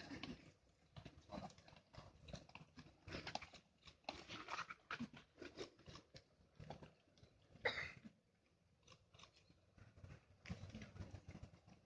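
Faint, irregular crunching of a horse's hooves on sand arena footing, with one sharper short sound a little before eight seconds in.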